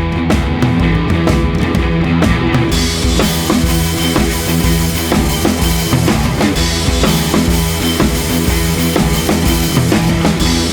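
Rock background music with a steady drum-kit beat; cymbals come in about two and a half seconds in.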